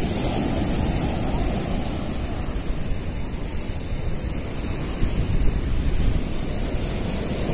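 Ocean surf breaking and washing up the sand in a steady rush, with wind buffeting the microphone.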